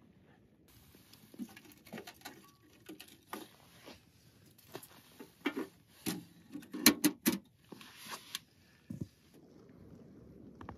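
Lighting a Pomoly T1 Mini titanium wood stove with frozen firewood: a run of clicks, knocks and crackles of kindling and wood being worked in the firebox, over a faint hiss. The sounds are densest about seven seconds in and die down near the end.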